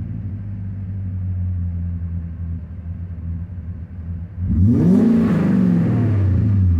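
BMW M60B40 4.0-litre V8 idling, then one sharp throttle blip about four and a half seconds in: the revs climb quickly and sink back slowly toward idle. The owner asks whether this slow return to idle is a vacuum leak.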